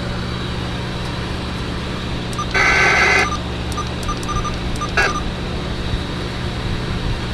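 CB radio receiver putting out steady static with a low hum. About two and a half seconds in comes a half-second burst of electronic tones, then a few short beeps, like key-up or roger-beep tones from another station on the channel.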